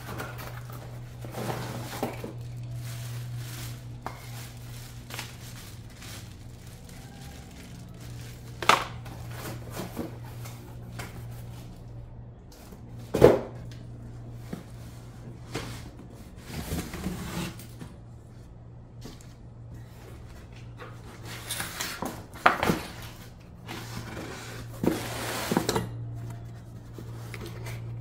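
Cardboard shipping boxes being handled and opened on a concrete floor: cardboard sliding, flaps scraping and rustling, with a few sharp knocks, the loudest about 13 seconds in, over a low steady hum.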